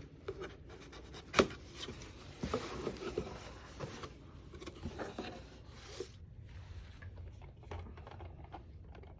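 Packaging being handled during an unboxing: scraping, rubbing and rustling with scattered clicks, and one sharp knock about a second and a half in. The handling grows sparser and fainter after about six seconds.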